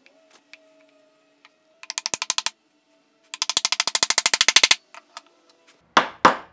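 Wooden mallet tapping a poplar dovetail joint together: a short burst of quick light taps, then a longer run of rapid taps, then three heavier single blows near the end as the joint is driven home.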